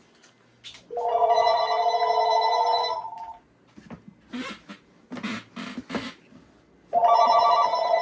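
Telephone ringing with an electronic ringtone, its incoming call rung out in two rings of about two and a half seconds each, the first about a second in and the second near the end. A few short knocks and noises come between the rings.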